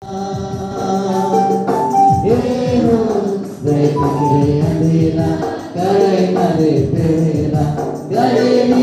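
Church hymn: an electronic keyboard and a drum beaten with sticks accompany a group singing together.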